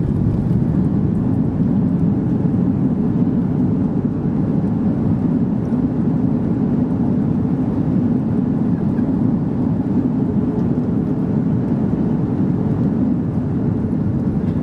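Airbus A330-200 cabin noise: a steady, loud, low rumble of engines and airflow as the airliner rolls on the ground just after landing.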